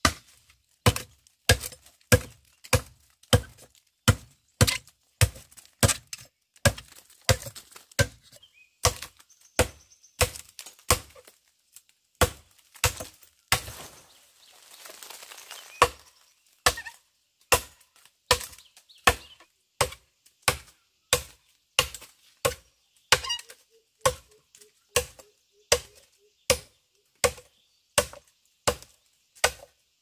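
A hand hoe chopping into the ground over and over, in a steady rhythm of about two blows a second. About halfway through the blows pause for a couple of seconds while soil or grass is scraped and rustled.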